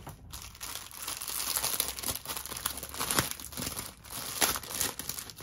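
Clear plastic wrapping around a bundle of diamond-painting drill bags crinkling as hands handle it, with several sharper crackles.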